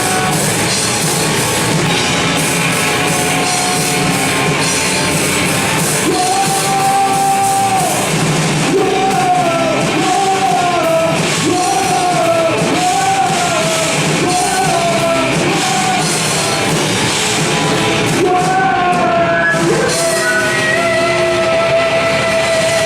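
Live rock band playing loudly, with a lead melody of short, repeated bending notes through the middle and one long held note near the end.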